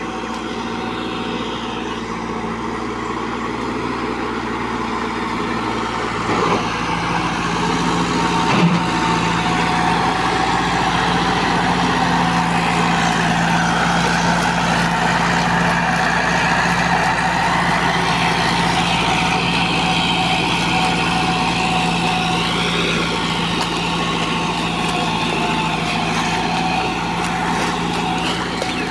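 Combine harvester running steadily under its diesel engine, a constant mechanical drone. There are two brief knocks around six and nine seconds in, and a higher whine that wavers in pitch through the second half.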